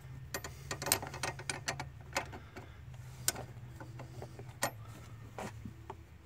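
A 10 mm wrench turning loosened brake line fittings on a master cylinder, giving a quick run of light metallic clicks for about two and a half seconds, then a few single clicks, over a steady low hum.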